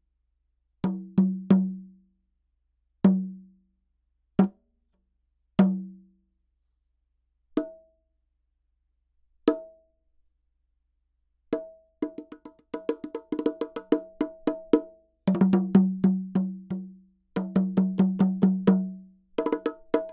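LP Aspire bongos with freshly fitted natural calfskin and mule-skin heads, struck by hand. The first half is spaced single strokes, mostly on the larger, lower drum, with two on the smaller, higher drum. From about halfway through comes a fast rhythmic pattern across both drums. This is a play-test of the new hide heads.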